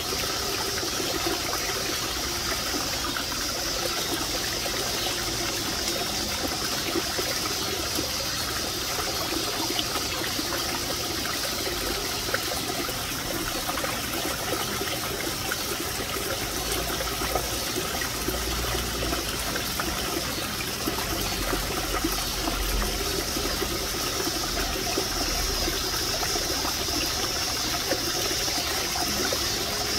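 Water trickling steadily into a small fish pond.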